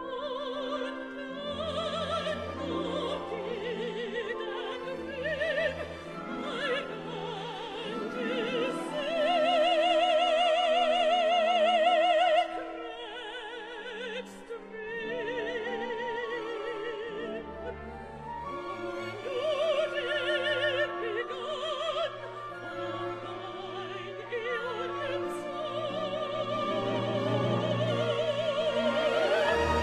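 A woman singing solo with a wide vibrato over an orchestra, in a slow classical song. Her phrases end on long held notes, the loudest held for about three seconds a third of the way in.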